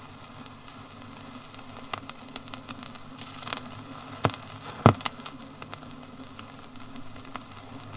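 Quiet stretch of an old vinyl sound-effects disc: surface hiss with scattered clicks and crackles over a faint low hum, with two louder clicks about four and five seconds in.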